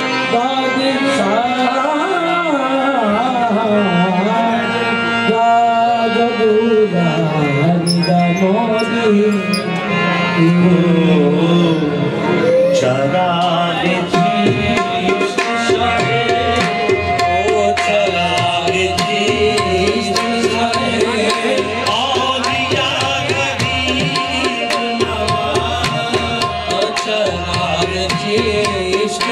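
Qawwali music: a singer's long, gliding vocal lines over harmonium and tabla. About halfway through, the tabla settles into a steady, busy beat under held harmonium notes.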